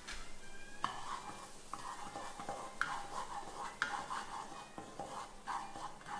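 Wooden spatula stirring and scraping garlic, onion and flour around a nonstick wok in melted butter, about one stroke a second, over a light sizzle: the butter-and-flour base of a white cream sauce being cooked.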